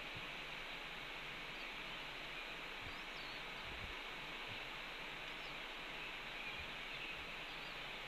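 Steady outdoor hiss from the nest-camera microphone, with a few faint, short, high bird chirps scattered through it.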